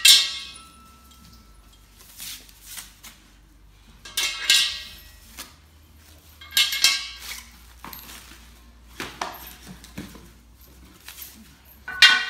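Black metal support bars clanking against each other and the floor as they are handled and set down: about five sharp metallic clinks, each with a short ring, a couple of seconds apart.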